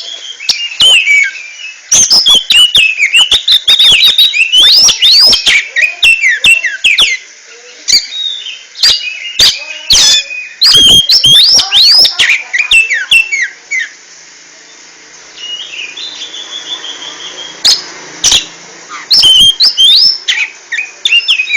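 Oriental magpie-robin (kacer) singing loudly in a fast, varied song of whistles, trills and sharp clicking notes. The song drops away briefly about two-thirds of the way through, then comes back with a quick run of repeated notes.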